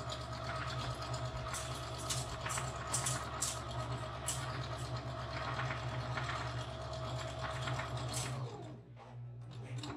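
Electric domestic sewing machine running steadily as it stitches through a double layer of fabric, its motor hum mixed with the rapid clatter of the needle. About eight and a half seconds in, the motor slows and stops.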